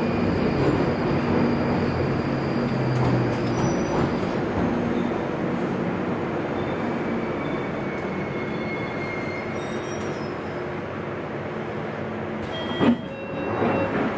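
London Underground 1995 Stock train running in a tunnel, heard from inside the carriage: a steady rumble with faint whining tones that slowly eases off. A sudden sharp knock comes near the end, followed by more uneven clatter.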